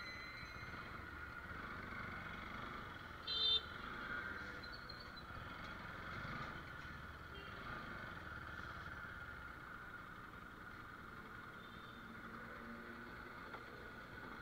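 Bajaj Pulsar motorcycle running at low speed along a street, with one short vehicle horn toot about three seconds in.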